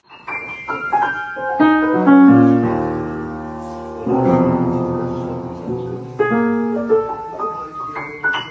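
Piano music: quick runs of single notes, then held chords struck about two and four seconds in, ringing out as they fade, then a few more quick notes.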